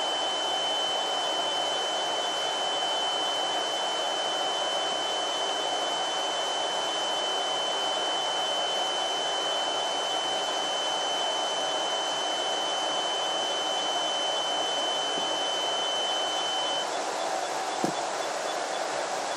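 An Arduino alarm clock's 9V buzzer sounding: one steady high-pitched tone that cuts off suddenly about 17 seconds in, followed a second later by a single click.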